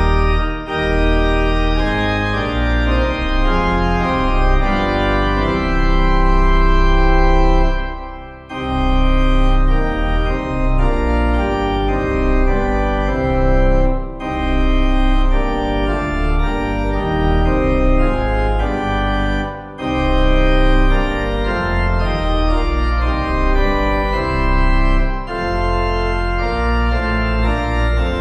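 Church organ playing a hymn tune in held chords, pausing briefly between phrases every five or six seconds.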